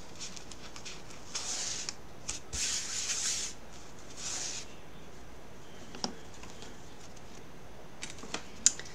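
A sticky Chalk Couture stencil transfer being fuzzed: pressed onto a terry fuzzing towel and pulled off again, making three short rubbing, peeling sounds, then a single light click and a few small taps near the end.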